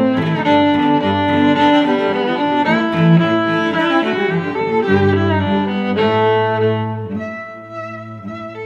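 Background music of bowed strings, cello and violin, playing slow sustained notes, growing softer near the end.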